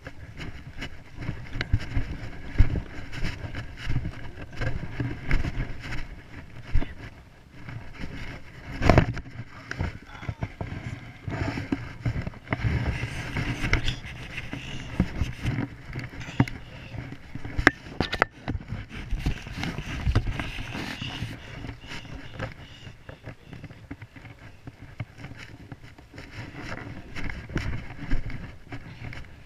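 Handling noise on a small action camera as it is carried and gripped: an uneven low rumble with rubbing and scraping, and a few sharp knocks, the loudest about a third of the way in.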